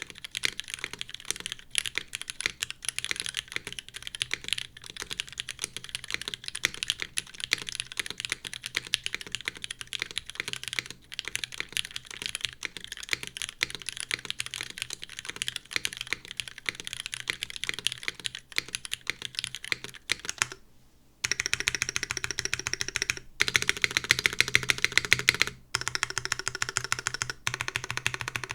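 Continuous typing on a mechanical keyboard with Cherry Hyperglide Black linear switches, aluminum plate and GMK keycaps, each keystroke a quick clack. About two-thirds of the way in, after a brief pause, the typing gives way to blocks of rapid repeated presses of the long stabilized keys, one key after another.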